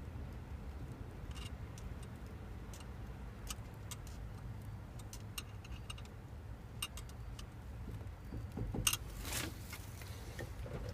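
Scattered small clicks and taps from hands working on steering-wheel parts and tape, with a brief louder rustle near the end, over a low steady hum.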